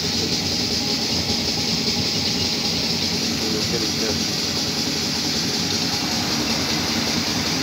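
Engine-oil flushing machine running with a steady mechanical hum and whir while it pumps cleaning solution through the engine and its filter bowl.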